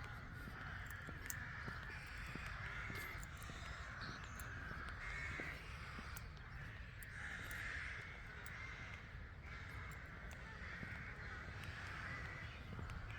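Ravens cawing from a flock, with many harsh calls overlapping one another and a steady low rumble underneath.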